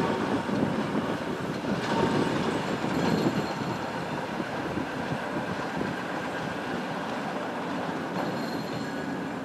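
TEM2 shunting diesel locomotive rolling slowly along yard track, its six-cylinder diesel engine running with a steady rough rumble. Faint high squeals from the wheels on the curved rails come and go.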